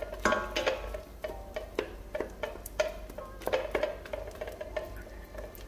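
Wooden spatula stirring caramel-coated hazelnuts and almonds in a stainless steel saucepan: irregular clicks and taps of the nuts and spatula against the pan. Soft background music plays underneath.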